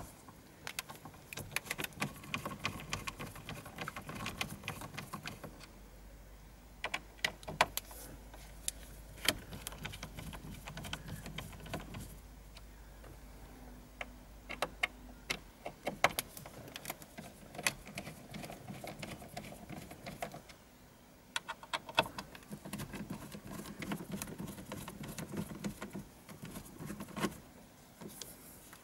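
Scattered small clicks and scrapes of a Torx T20 screwdriver turning out the screws that hold a car radio head unit in the dashboard.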